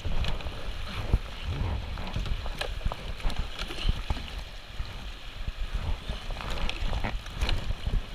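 Rushing water of a shallow river rapid around a kayak, with repeated splashes and knocks of double-paddle strokes and a low rumble.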